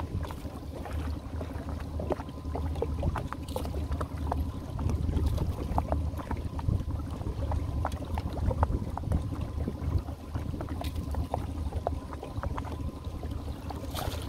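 Boat motor idling with a steady low hum as a crab trotline is run up over the side-mounted roller, with many small scattered clicks and splashes of water over it.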